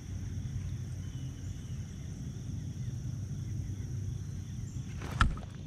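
Outdoor ambience on a kayak on a river: a steady low rumble with a faint steady high-pitched buzz. One sharp knock stands out about five seconds in.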